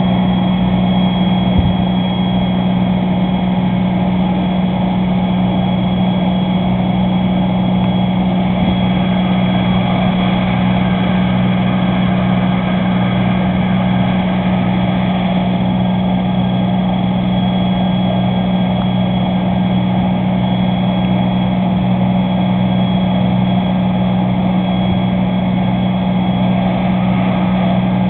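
Fire engine running at a constant speed: one steady, unchanging low drone with a rushing noise over it.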